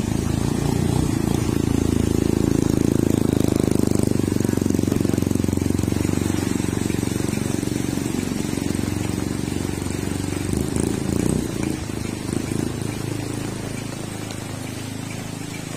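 Trail motorcycle engine running as it rides through floodwater, loudest in the first few seconds and then slowly fading away. Heavy rain hisses steadily underneath.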